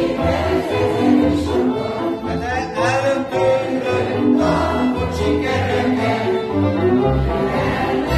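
Live string band music: a lead violin plays the melody, with sliding runs, over an accompaniment of double bass and violins.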